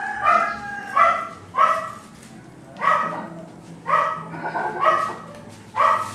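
A dog barking repeatedly, about eight short barks at uneven intervals.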